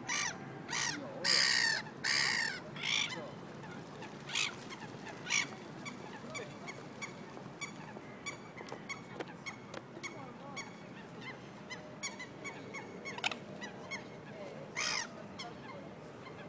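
Loud, harsh bird calls like crow caws: a quick run of four or five in the first three seconds, two more a little later and one near the end, with faint short chirps in between.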